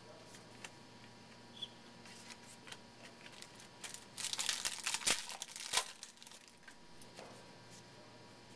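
A baseball card pack wrapper being torn open and crinkled, with light clicks of cards being handled. The loudest crackling stretch begins about four seconds in and lasts about two seconds, with two sharp snaps near its end.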